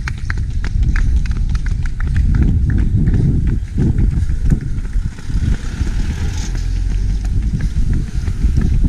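Running footsteps on a tarmac road in a quick steady rhythm, under heavy wind rumble on an action camera's microphone. A vehicle hisses past around the middle.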